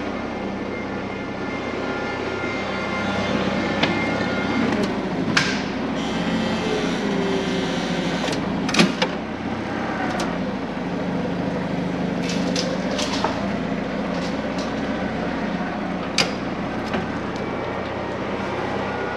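Sharp metal clanks and knocks, with a few short creaks, from engine-removal work as the engine and transmission are worked free and lifted out of the pickup. Underneath them runs a steady low hum.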